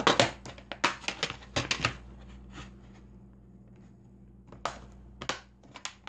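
Plastic DVD cases and discs being handled: a quick run of sharp clicks and clatters over the first two seconds, a quiet stretch, then a few more separate clicks near the end.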